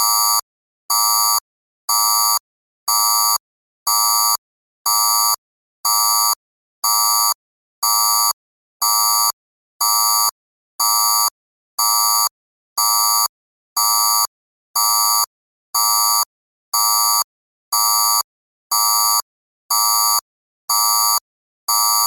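Electronic danger alarm beeping steadily, about one beep a second, each beep roughly half a second long with a buzzy tone and a short silence between.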